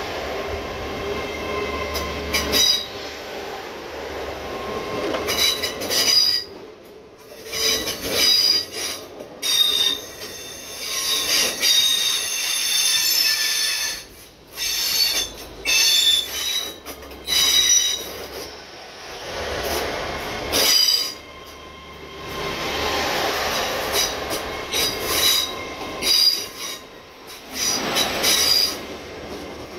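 Train wheels squealing: high-pitched flange squeal from a train moving slowly through the station, coming and going in many short screeches of one to a few seconds over a low rumble.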